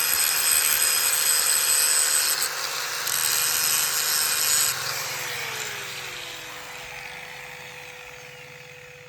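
Electric power tool running at speed with a high whine, eased off briefly about two and a half seconds in, then switched off near the middle and spinning down, its pitch falling as it fades.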